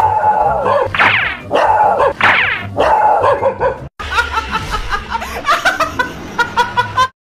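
A dog barks three times in high yelps that fall in pitch, then a woman laughs loudly in a quick run of high-pitched laughs.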